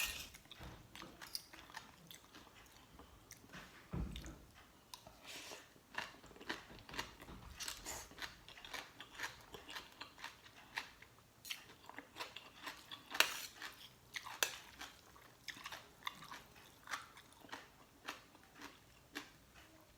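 A person chewing and biting into spicy papaya salad with soft-stewed chicken feet, close to the microphone: a steady string of short, irregular wet clicks and crunches, with a dull thump about four seconds in.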